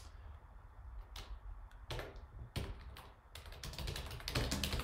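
Typing on a computer keyboard: a few separate keystrokes, then a quick run of keys near the end.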